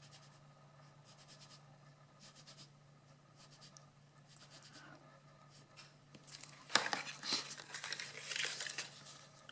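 Faint scratching of a liquid glue applicator tip drawn along a cardstock tab. About two-thirds of the way in, louder rustling and crinkling as the cardstock box is picked up and folded.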